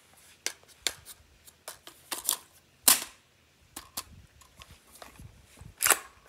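An AR-style rifle chambered in 50 Beowulf being worked by hand to clear a feeding jam: a run of short metallic clicks and clacks, with two louder clacks about three seconds in and just before the end.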